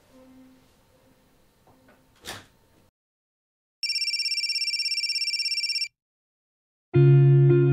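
A telephone rings once for about two seconds with a fast, trilling high-pitched tone, between stretches of silence. Before it there are faint room sounds and a soft knock; near the end, guitar music begins loudly.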